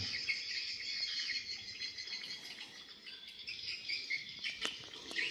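Insects, mostly crickets, and birds chirping in a steady chorus, with a few sharp clicks near the end.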